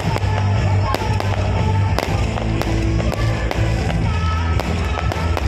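Aerial fireworks bursting in an irregular string of sharp bangs over loud music with a heavy bass beat.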